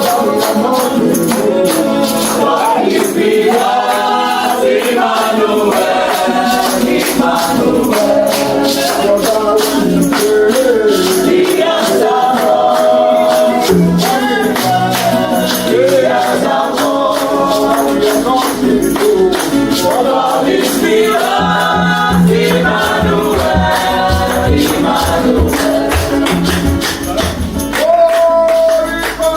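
Gospel worship music: a choir singing over a steady rattle of tambourine, with a bass line coming in partway through.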